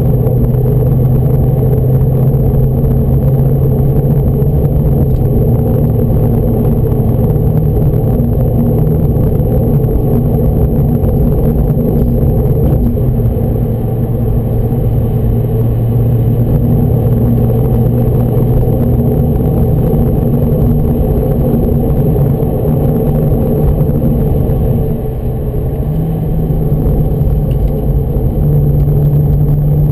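Porsche 996 911 Turbo's twin-turbo flat-six heard from inside the cabin, running at steady revs under a constant rumble. The engine note steps up in pitch twice near the end.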